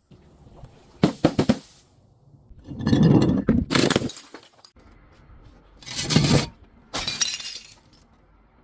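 Glass bottles breaking, shattering and crunching in four separate bursts, the second one longer and heavier.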